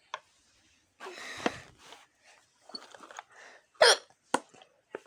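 A young girl's hiccups: a short one just as it begins and a loud, sharp one near the end. In between comes about a second of rustling handling noise.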